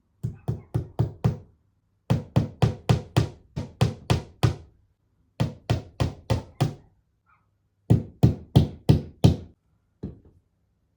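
Hammer driving a picture nail into a wall: four runs of quick blows, about four a second, with short pauses between and one lone tap near the end.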